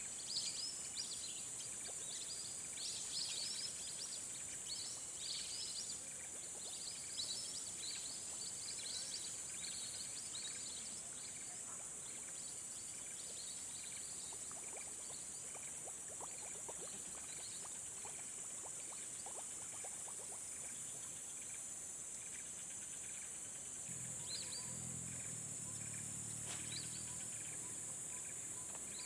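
Outdoor lakeside ambience: a steady high-pitched insect drone, with repeated bird chirps through the first dozen seconds. A few faint clicks come around the middle, and a low rumble lasts a few seconds near the end.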